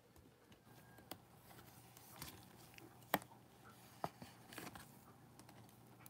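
Faint clicks and rustling of gloved hands handling a rigid clear plastic trading-card case, with one sharper click about three seconds in.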